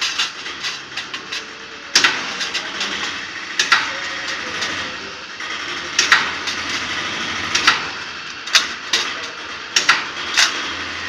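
A 10 kVA spot welder welding a sheet-metal panel box: a sharp snap or clack at each weld, about every one to two seconds, over steady background noise.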